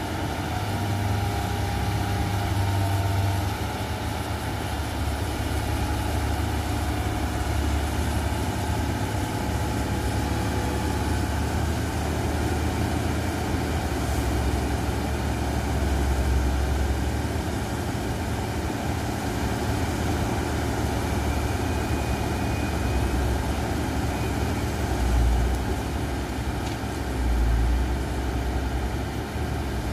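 Diesel engines of a Hitachi hydraulic excavator and a dump truck running steadily while the excavator digs and loads soil. Two brief louder surges come near the end.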